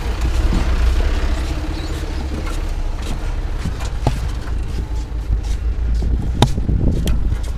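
Wind rumbling on the microphone, with two sharp knocks about four and six and a half seconds in as a large sheet of board is slid and handled on the trailer's floor.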